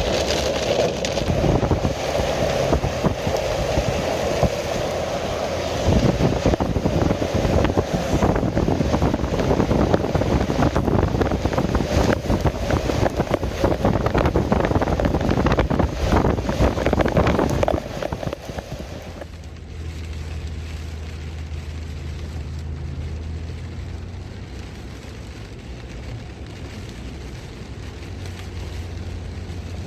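Heavy rain and rushing water, a dense crackling patter over a steady wash, with a vehicle's low rumble underneath. About two-thirds of the way through it cuts sharply to a quieter, steady low vehicle rumble.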